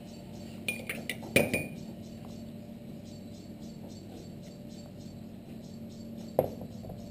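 Light clinks of cutlery or utensils against a plate as a dish is plated: a quick run of four clinks about a second in and a single one near the end. Under them is a faint steady background with a regular high pulsing.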